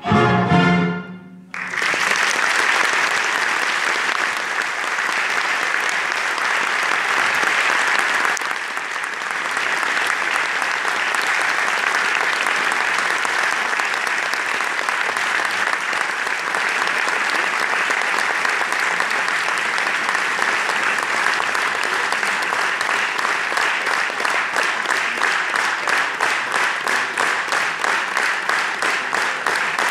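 A piano and orchestra end on a final chord that cuts off, and a large audience breaks into loud applause. Near the end the applause turns into rhythmic clapping in unison, on a steady beat.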